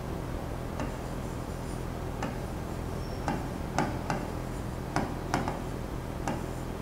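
Scattered light clicks and taps, about eight spread unevenly over several seconds, over a steady low hum.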